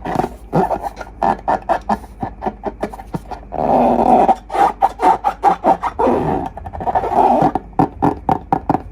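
Slime being squeezed and worked with long balloons: a quick run of wet squelches and squeaks, with a couple of longer blurts about a third and two thirds of the way in.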